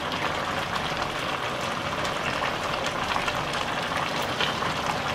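Pot of jackfruit and chicken in turmeric broth simmering, a steady bubbling hiss with small crackles.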